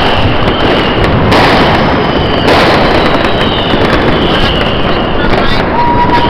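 New Year's fireworks going off all around: a dense, loud crackle of bangs and firecrackers with sharp blasts about a second and two and a half seconds in, and thin whistles of rockets over it. A steady high tone starts near the end.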